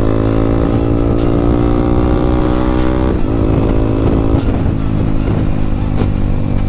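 Yamaha MT-15's single-cylinder engine through a loud aftermarket exhaust, pulling under throttle with its note rising steadily. About three seconds in, the note drops abruptly and then wavers as the engine keeps running.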